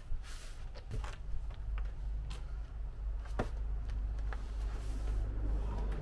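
Scattered knocks and footsteps on gravel as a wooden tabletop is handled and carried out of the back of a van, over a steady low rumble that grows slightly louder.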